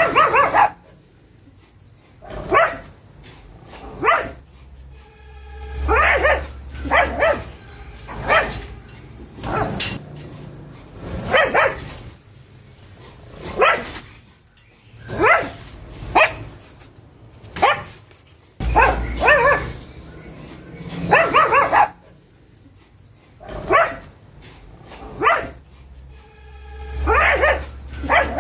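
Pug barking again and again, single barks and short runs of two or three, about one to two seconds apart.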